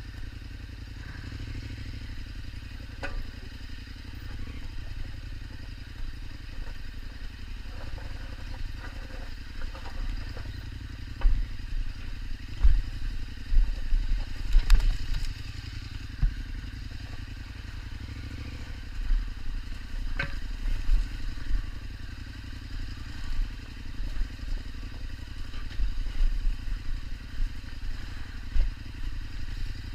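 KTM 1290 Super Adventure's V-twin engine running steadily as the bike is ridden over rough ground, with repeated thumps and clatter from the bike, busiest about a third of the way in and again through the second half.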